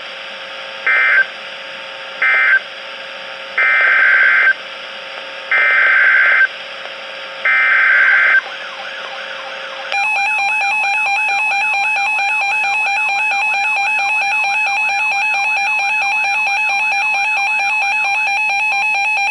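NOAA Weather Radio EAS/SAME signalling. First come three short bursts of screechy digital data, which are end-of-message codes closing the thunderstorm warning. Then three longer bursts of about a second each, the header for the next warning. About ten seconds in, a steady electronic attention tone starts and runs on, announcing the tornado warning.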